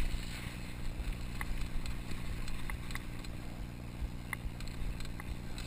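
Mountain bike descending a dirt singletrack, heard from a camera on the rider: a steady, uneven low rumble of tyres, frame and wind on the microphone, with a few sharp ticks from the bike rattling over the ground.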